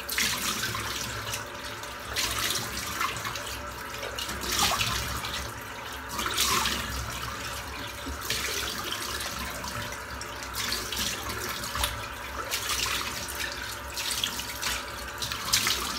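Bathroom tap running into a sink, with uneven splashes as water is cupped up to rinse a freshly shaved head and face.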